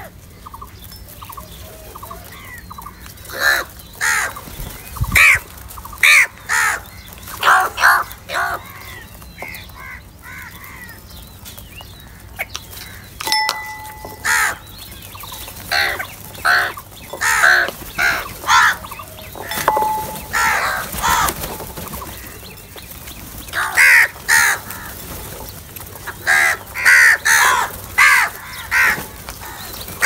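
A flock of house crows cawing over and over, short calls coming in quick bunches and sometimes overlapping, with a lull in the middle.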